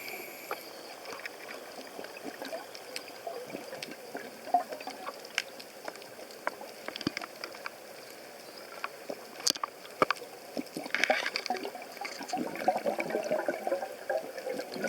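Underwater sound near a red stingray digging in the sand: many sharp clicks and crackles over a steady hiss, thickening into a dense crackle about eleven seconds in, with bubbling near the end. The uploader hears a teeth-grinding-like noise that they take, with doubt, for the stingray's sound while feeding.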